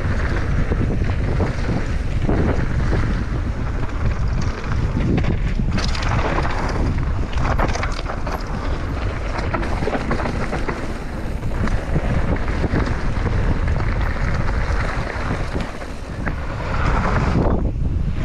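Heavy wind buffeting the microphone of a mountain bike descending a dirt trail at speed, mixed with the tyres rolling over dirt and gravel. The rush dips briefly near the end, then picks up again.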